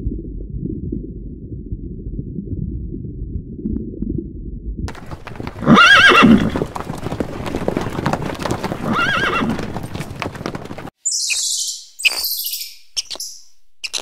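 A low, muffled rumble, then a horse whinnying twice, about six and nine seconds in. Short high-pitched chirps follow near the end.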